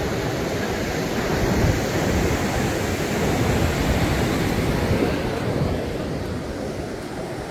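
Ocean surf washing on a sandy beach, mixed with wind buffeting the microphone: a steady rushing noise that swells through the middle and eases off near the end.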